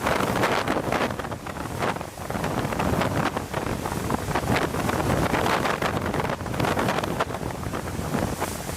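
Hurricane wind blowing hard across the microphone: a loud rush of wind noise that rises and falls in gusts.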